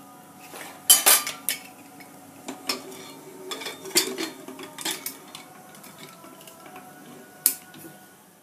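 Metal lid of a pressure cooker being fitted onto the pot and locked by its handles: a series of sharp metallic clanks and clicks, the loudest about a second in and another near the end.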